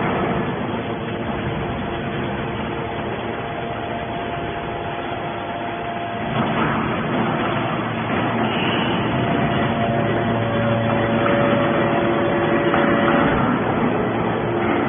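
Hydraulic scrap metal baler running: steady machine noise with several humming tones, which shift and grow a little louder about six seconds in.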